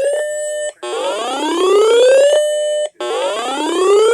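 Electronic whoop-style alert tone that sweeps up in pitch, holds for a moment, then cuts off, repeating about every two seconds: an emergency alert signal.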